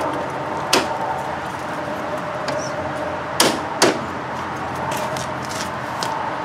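Clicks and knocks of a Volvo 940's front grille being pressed into place by hand, over a steady hum. One sharp click comes about a second in, and two more come close together a little past halfway.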